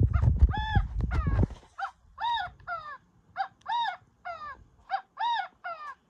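Singing bird clock playing its recorded California quail call through its small speaker: short notes that rise and fall in pitch, in groups of two or three repeated about every second and a half. A low rumble sits under the first calls.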